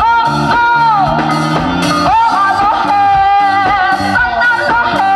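Live folk fusion band: a woman sings long held notes that bend and slide into a microphone, over electric guitar, bass guitar and a drum kit keeping a steady beat.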